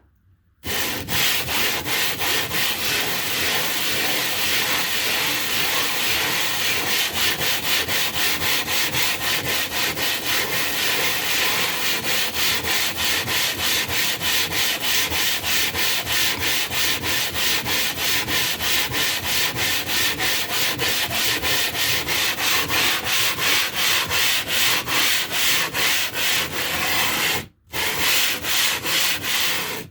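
A limestone block being scrubbed back and forth, wet, against a gritty abrasive surface to flatten one face for sharpening. The scraping strokes are rapid and even, with one brief pause near the end.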